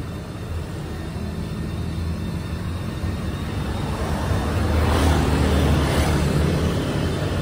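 Motor vehicle engine rumbling steadily, swelling louder about four to six seconds in, as a vehicle passes close by.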